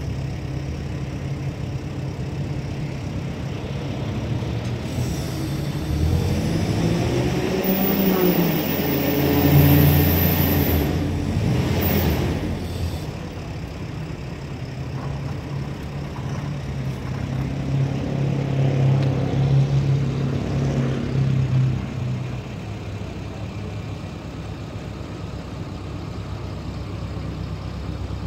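Telehandler's diesel engine running steadily, revving up twice: once about six seconds in for several seconds, and again a few seconds later, before settling back.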